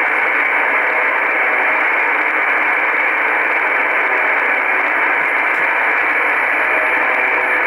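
Shortwave receiver in upper sideband on 4625 kHz giving steady static hiss, with the Russian military 'Buzzer' station (UVB-76) buzzing very faintly just above the noise floor.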